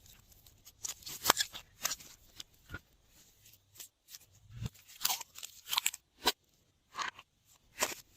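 Glossy slime being squished and worked by hand, giving irregular sticky clicks and crackling pops, the loudest about a second in, with a cluster around five to six seconds and single pops near seven and eight seconds.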